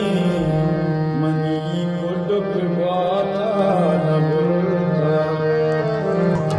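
Background music: a wavering melody over a steady low drone.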